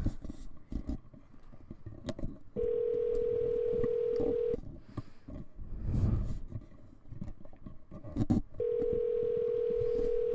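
Ringback tone of an outgoing phone call heard over a phone's speaker: a steady two-second ring, twice, about six seconds apart, the second still going at the end. Soft muffled bumps and handling noise between the rings.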